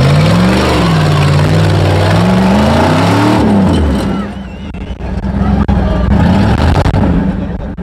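A 4x4 off-road rig's engine revving hard: the pitch climbs, dips and climbs again over about three seconds, then drops back to a lower, rougher running sound.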